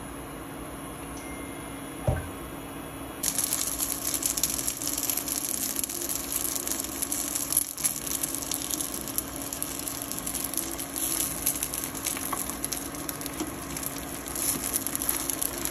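Gyoza pan-frying in oil in a grill pan. A steady low hum and a single knock are heard first, then about three seconds in a loud sizzle with crackling begins and keeps going.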